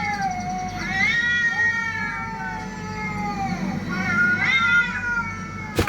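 Cat caterwauling: long, drawn-out yowls that waver and bend in pitch, about three in a row, the middle one about two and a half seconds long, the kind of yowling cats make when squaring up to fight. A sharp click near the end.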